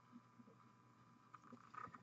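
Near silence: room tone with a faint steady hum, and a few faint small clicks and rubbing sounds in the second half as the miniature and paintbrush are handled.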